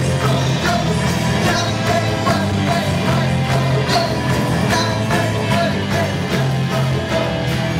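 Background music with a steady beat and a repeating bass line, in a rock or pop style.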